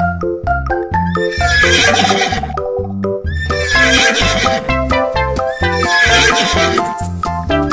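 A horse whinnying three times, about two seconds apart, laid over background music.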